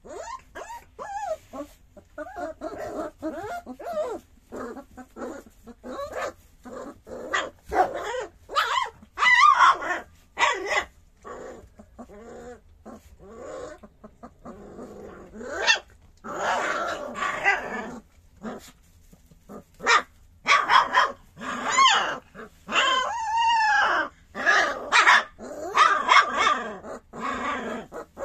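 A three-week-old puppy whimpering and yelping: a long string of short, high cries, many in quick succession, growing louder and more frequent in the second half.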